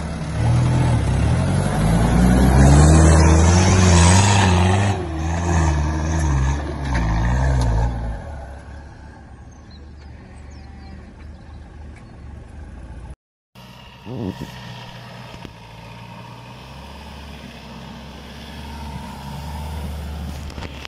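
First-generation Nissan Terrano 4x4 engine revving hard in repeated surges, its pitch rising and falling, for roughly the first eight seconds. After a cut, another off-road 4x4's engine runs more quietly while working a muddy trail, with a brief thump soon after the cut.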